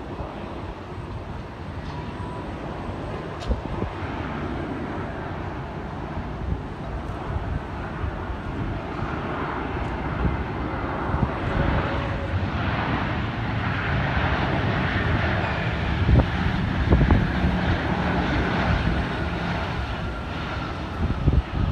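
Jet airliner engines at takeoff power during the takeoff roll. A steady roar with a faint whine grows louder over the second half.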